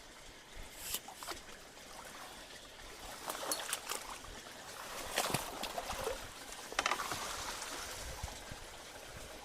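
Ditch water trickling and splashing at a culvert, with a few sharp knocks and splashes scattered through it, heaviest a few seconds in, as debris is raked out.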